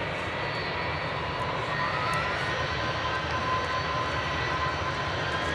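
Airbus A330-200's twin jet engines at taxi power as the airliner rolls along the taxiway: a steady rumble under a high engine whine. One whine rises in pitch about two seconds in, and another starts to climb near the end.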